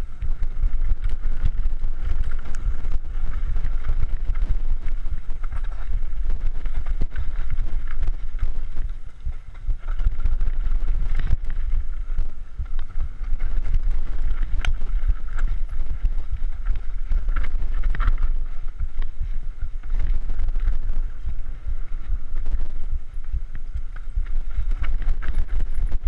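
Mountain bike descending a dirt forest trail: a steady low rumble of wind on the microphone and tyres over dirt and roots, with sharp knocks and rattles of the bike over bumps here and there.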